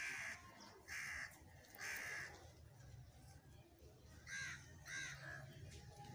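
A bird calling outdoors: three harsh calls about a second apart, then two more close together a little past the middle.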